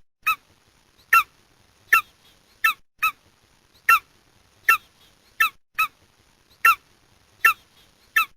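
Golden eagle calling: a series of about a dozen short, sharp yelps repeated at an uneven rhythm, one every half second to a second.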